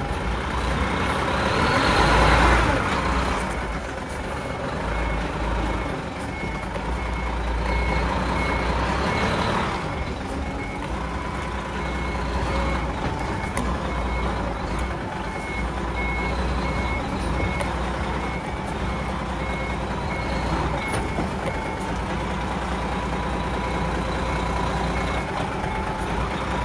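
Hino Profia tractor unit's diesel engine running under load as it reverses a container semi-trailer up a steep slope, revving up and easing off several times. Its reverse warning beeper sounds a regular short beep about twice a second.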